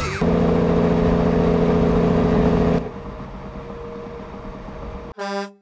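A loud, steady engine-like drone with a hum under a wide hiss, which drops sharply about three seconds in to a quieter hiss, then a short horn beep near the end.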